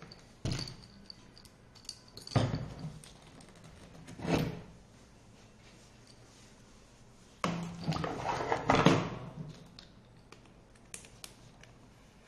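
Knocks, clunks and scrapes of tools and parts being handled on an electric scooter hub-motor wheel: a couple of sharp knocks, a short scrape about four seconds in, and a cluster of clattering and scraping around eight to nine seconds in.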